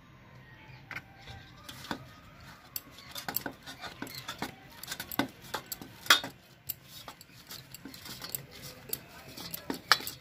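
Scattered light clinks and knocks of bangles and hands against a stainless steel bowl as a ball of dough is oiled and turned in it, with two louder clinks about six seconds in and near the end.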